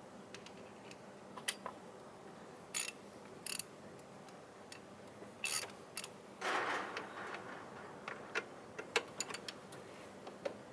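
A 17 mm spanner working the bolt of an engine's idle pulley, making scattered sharp metallic clicks and clinks, with a short scraping rasp about six and a half seconds in.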